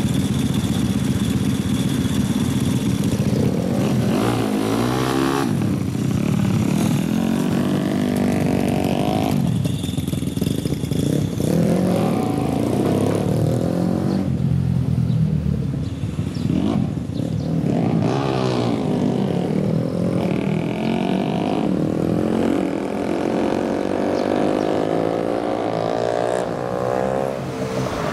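Small Honda single-cylinder four-stroke motorcycle engines running and revving. The engine note holds fairly steady at first, then rises and falls in pitch several times as the bikes accelerate through the gears and pass by.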